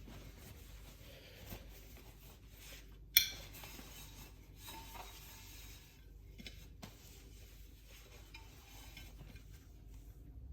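Faint handling sounds of an enamelled cast-iron pot, with one sharp clink about three seconds in and a few light knocks later.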